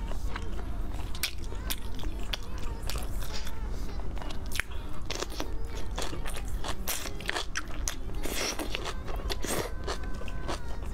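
Close-up crunching and chewing of napa cabbage kimchi: a string of crisp, crackling bites through the cabbage leaves, over a low steady hum.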